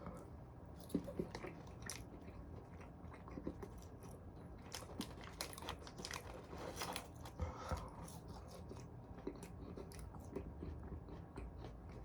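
A person chewing and biting food close to the microphone: soft, irregular crunches and wet mouth clicks.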